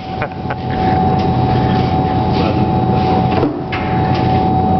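Electric bakery machine motor running: a steady whine over a low hum, with a short clatter about three and a half seconds in.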